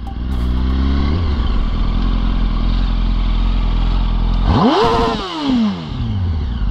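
Yamaha R1 inline-four engine through an Akrapovič exhaust, rising in pitch as the bike pulls away over the first second, then running steadily. About four and a half seconds in it gives a sharp rev that climbs quickly and falls away over about a second and a half.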